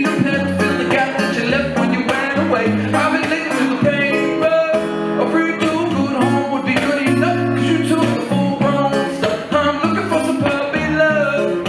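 A wooden box-bodied electric guitar strummed in a steady rhythm, live music.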